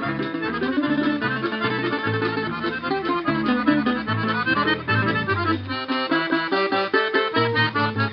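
Russian folk instrumental ensemble playing a lively quadrille tune: an accordion carries the melody over fast plucked domras and balalaikas, with a contrabass balalaika plucking the stepping bass notes.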